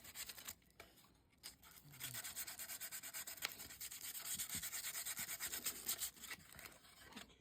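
Hand-sanding the plastic body of a small 1:24-scale RC crawler: quick, repeated rubbing strokes that pause briefly about a second in, then run on steadily.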